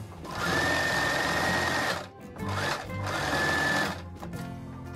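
Domestic electric sewing machine stitching through a folded knit neck band in two runs of about a second and a half each, with a brief stop between them; a steady high motor whine sits over the needle's rapid rattle.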